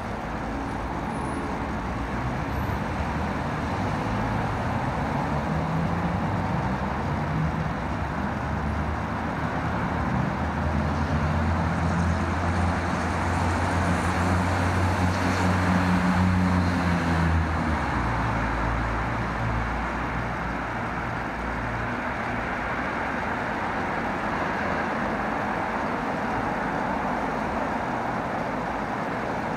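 Road traffic noise. A vehicle engine runs louder in the middle and cuts off after about 17 seconds.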